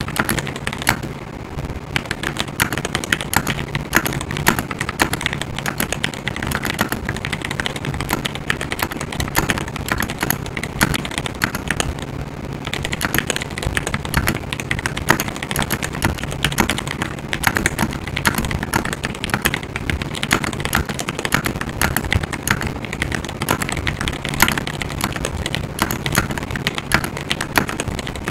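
Continuous fast typing on a GMMK Pro mechanical keyboard fitted with Everglide Aqua King linear switches: a dense, unbroken stream of keystrokes.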